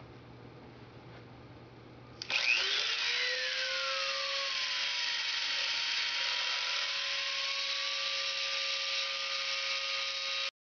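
Dremel rotary tool switching on about two seconds in and running steadily with a high whine, its pitch settling as it comes up to speed, as its diamond grinding bit works a hole in wet glass; the tool is noisy and in need of servicing, by its owner's account. The sound cuts off suddenly near the end.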